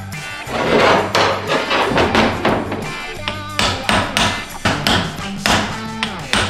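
Hammer tapping on a socket used as a makeshift seal driver, in quick repeated blows about three a second, seating the output shaft seal into a ZF6 transmission's rear case.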